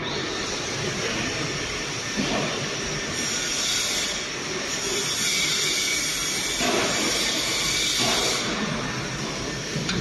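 Steady machine-shop noise: machinery running with a dense rumble and a hiss that grows stronger through the middle, with a few short knocks.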